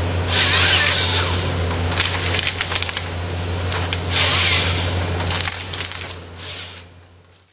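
Cat 320C excavator's diesel engine running with a steady low drone while its Log Max 5000 single-grip harvester head works a felled stem: wood cracking and splintering, with two louder rushes of noise about a second long. The sound fades out near the end.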